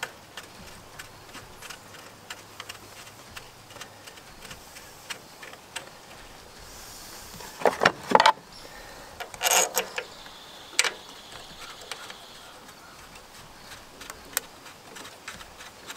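Small metallic clicks and clinks of screws and a hand tool as carburetor screws are driven back in, with a few louder clatters in the middle.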